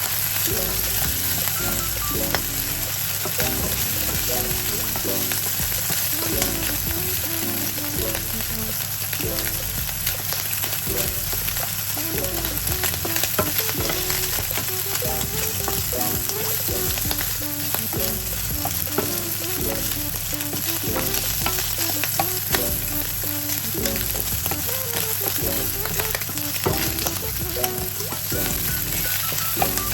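Food sizzling steadily in hot oil in a frying pan, with a few light clicks as it is stirred.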